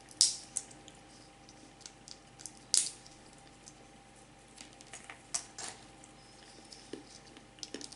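Faint, scattered wet smacks and small clicks of a person eating close to the microphone, with one louder click a little under three seconds in.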